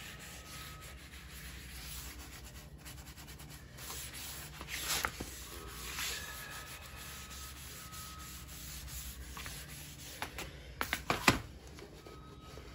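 A rag wiping and rubbing wood stain into a block of pressure-treated lumber: a steady scrubbing of cloth over wood, with a couple of stronger strokes. A quick cluster of sharp knocks near the end is the loudest sound.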